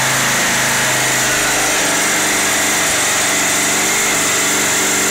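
Briggs & Stratton 5¾ hp four-stroke single-cylinder lawn mower engine, converted to drive an outboard's lower unit, running steadily. Its note shifts slightly about two seconds in.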